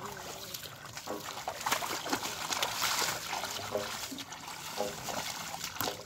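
Hands splashing and squelching in shallow muddy water, groping through mud and water hyacinth, with an uneven run of small splashes and trickles.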